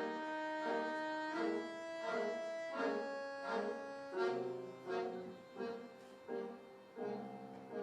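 Accordion playing a slow instrumental introduction: a held melody line over regular chord pulses in the accompaniment, about three every two seconds.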